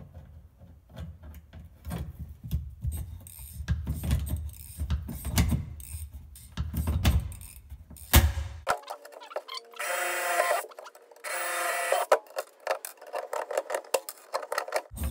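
Hand pop-rivet gun setting a rivet through a carbon-fibre plate into a plastic kayak hull. There are handling knocks and clicks, then a sharp snap about eight seconds in as the rivet sets, then two harsher bursts of mechanical noise about a second long each.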